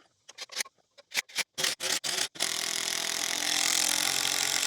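Power drill boring into hard oak: several short trigger bursts, then a steady run of the motor with the bit cutting wood for about three seconds.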